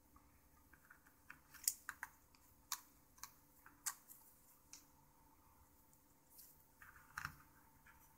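Faint, irregular light clicks and taps of small plastic phone parts, a BlackBerry Storm's LCD/digitizer assembly and bezel, being handled and set down on a work surface, with a small cluster of taps near the end.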